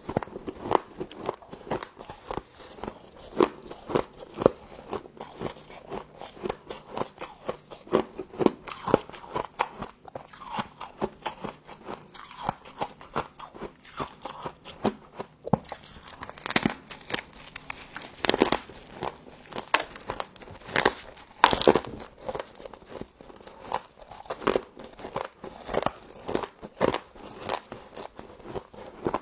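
Frost being bitten and crunched in the mouth at close range: a dense run of crisp crackles and crunches, with louder bites now and then.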